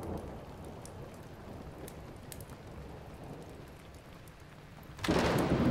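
Steady rain falling, with scattered small drips. About five seconds in, thunder breaks in suddenly and the storm keeps on loud.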